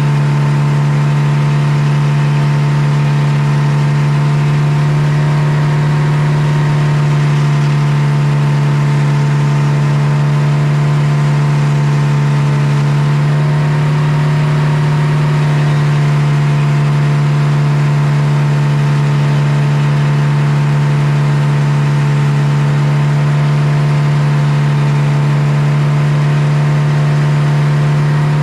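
Circular sawmill running with a loud, steady drone as its large blade saws a board from a poplar log.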